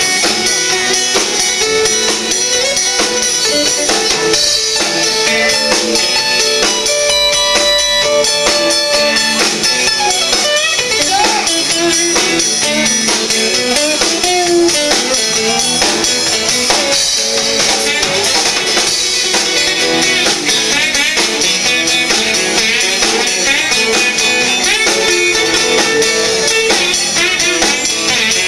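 Live band playing an instrumental passage on acoustic and electric guitars over a drum kit.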